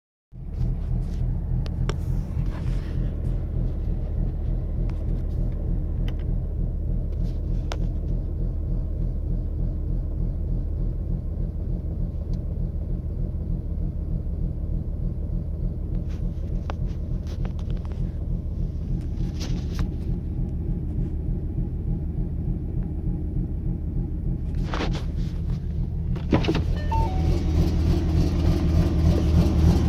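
A 2014 Ford Mustang's 3.7-litre V6 with a ghost cam tune, shorty headers, off-road H-pipe and stock mufflers, idling at about 1000 rpm with the tune's deliberately uneven, loping exhaust rumble, heard from inside the cabin. It gets somewhat louder near the end.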